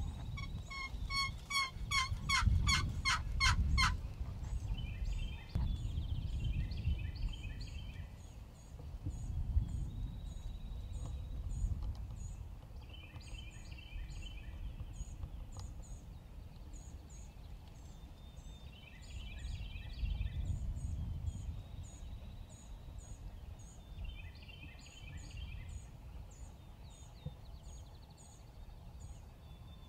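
Wild Rio Grande turkeys gobbling: a loud, fast rattling gobble about a second in, then further gobbles every five or six seconds. Faint high chirps run underneath, with a low wind rumble.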